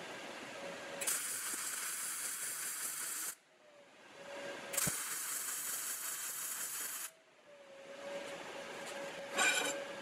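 MIG welding arc on steel tube, a dense crackling hiss, in two runs of about two seconds each that start and stop abruptly. A fainter hiss follows near the end, with one short sharp burst.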